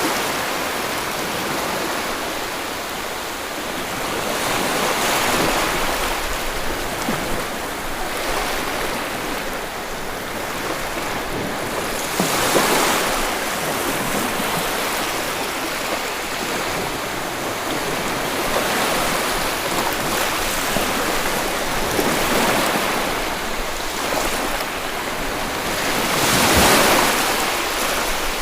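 Sea surf washing onto a beach: a steady wash of water noise that swells louder as waves break every few seconds.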